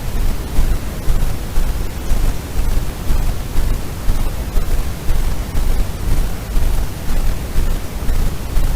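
Steady rushing noise, strongest in the low end, with no distinct calls, knocks or other events.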